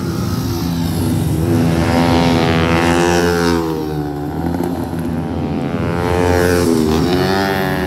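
Supermoto motorcycle engines revving on the track. The pitch climbs and falls twice over a steadier low engine drone.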